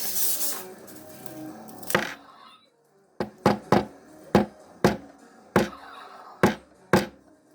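Background music fading out, then a series of about eight sharp knocks or taps at uneven intervals, starting about three seconds in.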